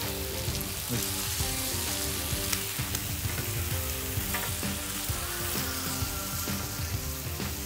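Steak sizzling in butter on the hot cooking surface of a wood-fired grill, a steady frying hiss. Short clicks and scrapes come as the meat is spread out with a spatula.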